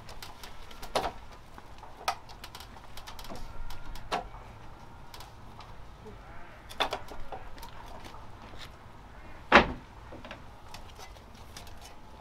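Scattered sharp wooden knocks and clacks as small wooden roof bricks are handled and set onto a timber roof frame, the loudest knock coming a few seconds before the end.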